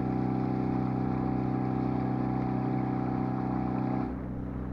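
A sailing yacht's engine running steadily under way, a constant hum with even tones, which becomes quieter about four seconds in.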